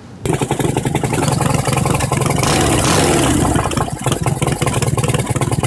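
Boxer-twin (horizontally opposed two-cylinder) motorcycle engine running, heard close at its chrome exhaust as an even run of firing pulses.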